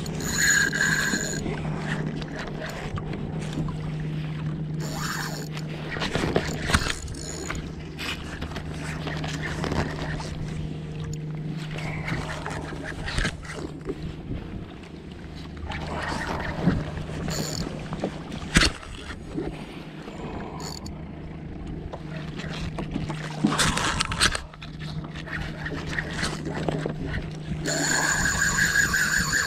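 Small waves lapping and slapping against a kayak hull with wind on the microphone, scattered knocks and clicks, and a steady low hum throughout. A spinning reel is cranked briefly near the start and again near the end, with a short high whir.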